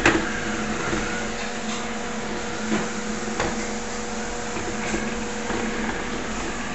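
Samsung robot vacuum running as it drives itself back to its charging dock: a steady motor hum with two held tones, a sharp click right at the start, and a few light taps.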